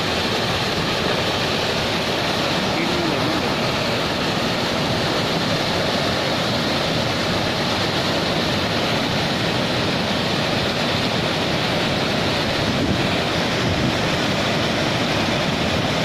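Water spilling over a lowered spillway flap gate and falling onto the concrete chute below, a steady rushing noise. It is the surface layer of the reservoir being released to flush floating debris downstream.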